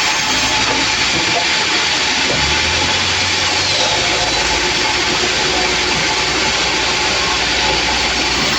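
Sawmill machinery running: a loud, steady, hissing mechanical noise, as of a saw and its engine at work.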